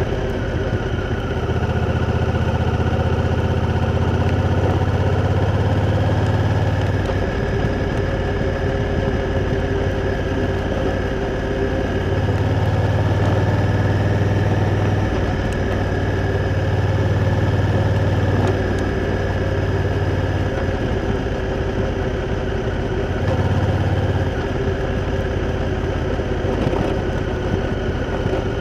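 Honda Africa Twin's parallel-twin engine running at low revs, the note swelling and easing every few seconds with the throttle.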